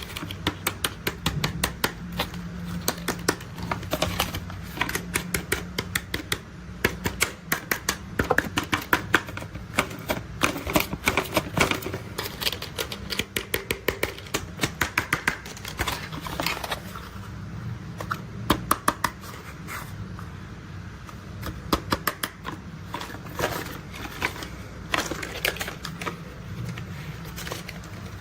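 Plastic toy construction vehicles being handled: rapid, irregular clicking and rattling of plastic parts in dense runs with brief pauses, over a low steady hum.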